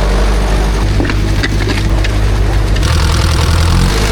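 Ursus C-360 tractor's three-cylinder diesel engine running with a steady drone, with a few light clicks about a second in and a slight change in its tone near three seconds.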